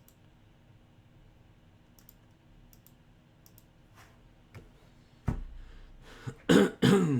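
A man clearing his throat and coughing twice near the end, preceded by a single thump; before that only faint scattered clicks.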